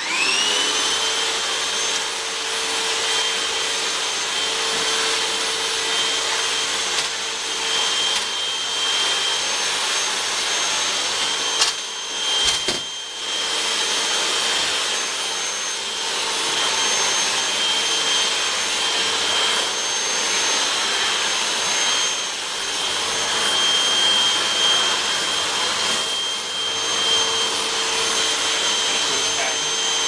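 Hoover WindTunnel upright vacuum cleaner switched on, its motor whine climbing to a steady pitch within the first second, then running steadily with a high whine and a rushing hiss of air through the hose and wand attachment. A few sharp clicks and knocks come about twelve seconds in.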